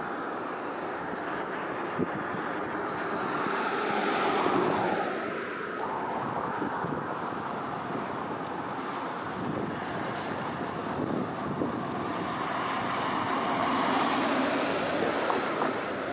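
Street traffic noise, with two cars passing: one swells and fades about four seconds in, another near the end.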